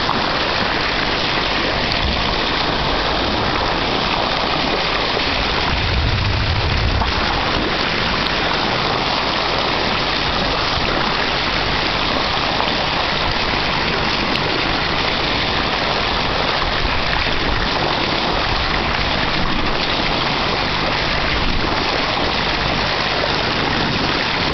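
Steady rushing hiss of seawater along the bow of a sailing yacht moving through the sea, even and unbroken, with a brief low bump about six seconds in.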